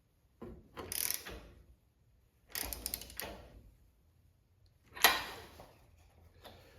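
Socket ratchet clicking in two short runs of strokes as a new spark plug is snugged down, then a sharp knock about five seconds in.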